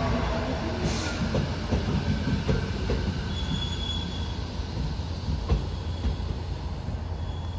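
Electric commuter train running along the track and away, its wheels rumbling and clacking on the rails with brief high wheel squeals. The sound fades gradually, with a sharp clack about five and a half seconds in.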